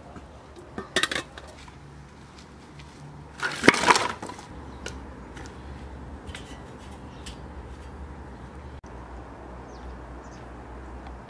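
Metal kitchenware clanking: a steel colander knocking against an enamel basin, with a few clinks about a second in and a louder clatter a little before halfway. After that only a few faint ticks.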